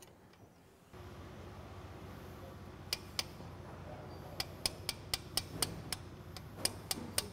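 Ratchet wrench clicking as the moped's top engine mount bolt is undone. Two clicks come first, then a steady run of about three or four a second, over a low steady hum that starts about a second in.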